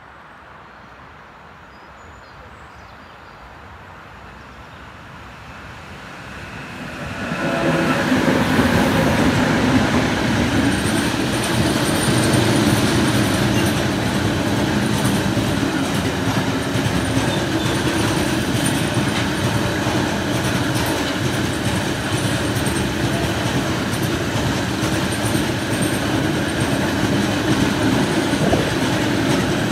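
Freight train of open hopper wagons approaching, growing louder over the first few seconds. From about seven seconds in it passes close by with a steady rumble and clatter of wheels on the track and a thin high squeal.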